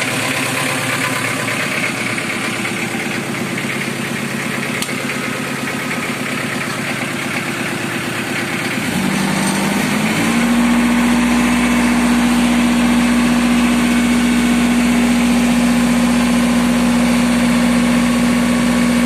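Isuzu diesel engine of a generator set running steadily on test after an alternator replacement. About nine seconds in its pitch steps up and it grows louder, then it runs on at the higher speed with a strong steady hum.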